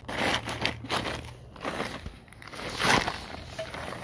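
Plastic tarp crinkling and rustling as a motorcycle wheel is shifted about on it, with small knocks and scrapes of metal.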